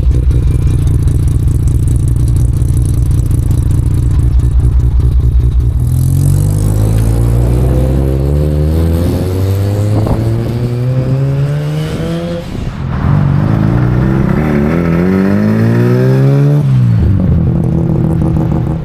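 Rotary-engined Mazda idling with a fast, lumpy pulse, then pulling away with the revs rising several times over as it accelerates through the gears, dropping back near the end.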